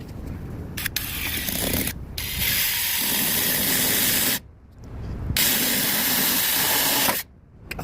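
Cordless multi-tool running under load with a loud, hissing buzz, in two runs: one of about three and a half seconds starting about a second in, then, after a brief stop, one of about two seconds that stops near the end.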